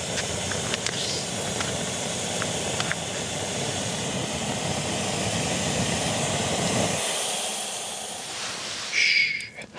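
Jetboil gas canister stove burner running with a steady rushing hiss and low rumble, cut off abruptly about seven seconds in, leaving a fainter high hiss. A short higher-pitched sound comes near the end.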